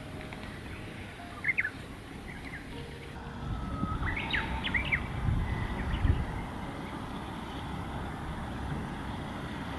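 Small birds singing in the open mountain air, with short whistled phrases that swoop up and down and a few long held notes. Around the middle, gusts of wind rumble on the microphone.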